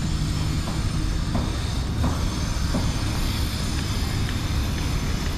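Street ambience: a steady low rumble of traffic, with a few faint clicks.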